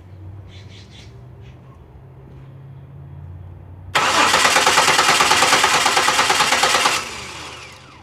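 2006 Buick Lucerne's 3.8 L 3800 V6 turning over on the starter for about three seconds with an even pulsing, then stopping abruptly without firing. It is a crank, no-start: no spark, from a faulty ignition control module that no longer supplies the 12-volt reference to the crank sensor.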